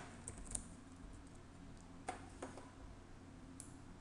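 A few faint computer keyboard keystrokes, irregularly spaced.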